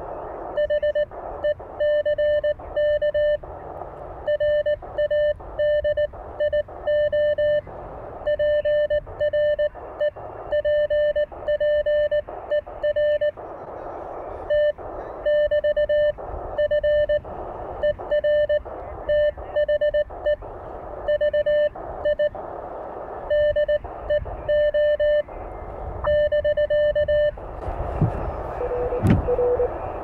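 Morse code (CW) keyed with a paddle on an Elecraft K1 transceiver, heard as its sidetone beeping on and off at one steady pitch. Near the end the sending stops, the receiver's band noise comes up with a brief thump, and a slightly lower-pitched Morse signal from the other station begins.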